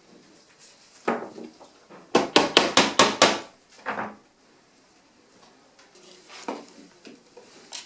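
Sharp tool taps on a stained-glass panel being leaded up at a wooden workbench: one knock about a second in, then a quick run of about eight taps, one more shortly after, and a few faint small knocks near the end.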